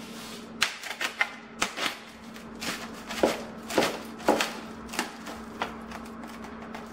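Kitchen knife tapping and scraping against a plastic meat tray and a plastic mixing bowl while ground chicken is pushed out of the tray, giving about a dozen irregular sharp clicks and knocks.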